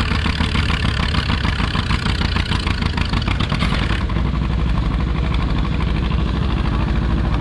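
Antique farm tractor engines, an Oliver 66 and a John Deere B, running steadily at idle while hitched together by a double-tree beam to a pulling sled. A hissy upper layer over the engine sound drops away about four seconds in.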